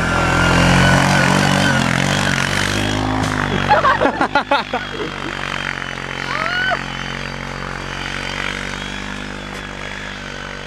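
ATV engine running steadily as the quad pulls past and away, its sound slowly fading. A person's voice breaks out briefly about four seconds in.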